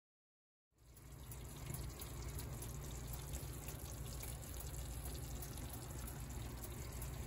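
Silence, then from about a second in, a steady low hum with an even hiss from the hot oven.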